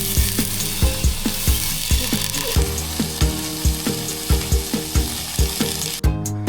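Beef steak sizzling in a hot pan, an even hiss that cuts off suddenly about six seconds in, under background music with a steady beat.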